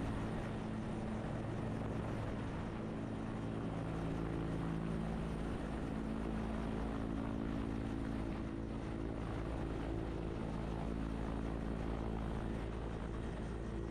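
Helicopter turbine and rotor running steadily in flight: a constant drone with steady engine tones and a faint, even pulsing from the rotor.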